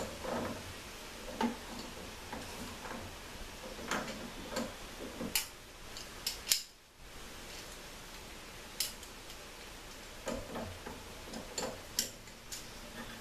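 Pliers clicking and scraping against a metal fitting cap on an air-conditioning evaporator as the cap is worked loose, a string of irregular sharp metal ticks and clicks.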